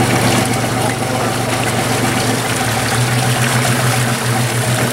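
Boat engine running steadily, a low even hum that grows a little louder about three seconds in, with water splashing along the hull.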